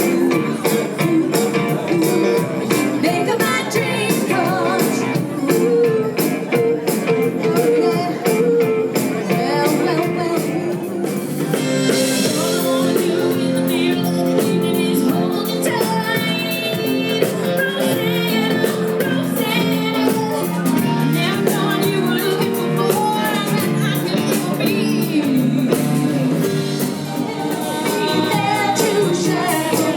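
Live band playing soft-rock music with a steady beat, singers' voices over guitar and drums; about eleven seconds in, a cymbal crash and the song moves into a fuller section with more prominent vocals.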